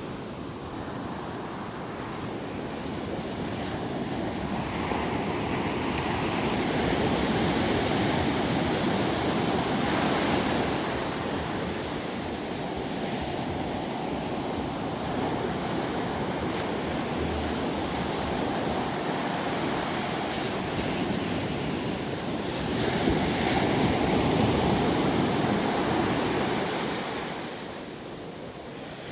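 Ocean surf washing in with a continuous rushing noise that swells louder twice, as waves break.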